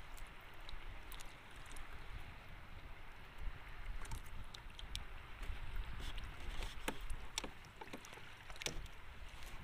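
Steady wind and water noise around a small boat, with scattered sharp clicks and ticks, more of them in the second half, as the fishing rod and line are handled to bring in a squid.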